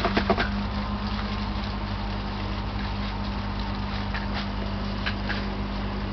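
A steady low mechanical hum with a few brief clicks right at the start.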